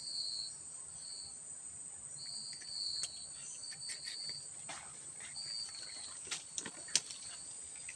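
Insects trilling: a steady, very high-pitched trill with a lower trill coming and going in short phrases. A few sharp clicks fall in the second half.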